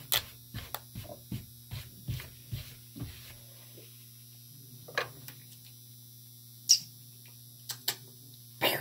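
A quick run of light knocks and taps from objects being handled on a bathroom counter, thinning out after about three seconds to a few isolated clicks, over a steady low electrical hum.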